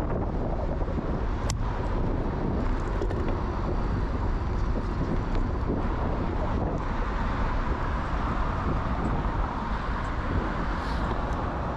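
Steady wind rushing and buffeting over the microphone of a camera on a moving bicycle, with a sharp click about a second and a half in.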